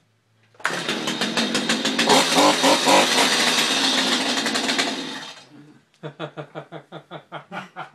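A chainsaw bursts in loudly about half a second in and runs with a fast rattling beat for about five seconds, then dies away. Quick rhythmic laughter follows.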